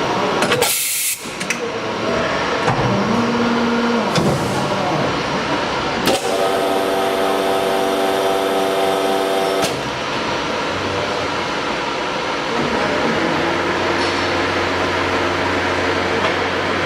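Horizontal liquid silicone rubber injection molding machine running: a steady loud machine noise with a short burst of hiss about a second in, a whining tone of several pitches for about three and a half seconds midway that cuts off suddenly, and a low hum in the later part.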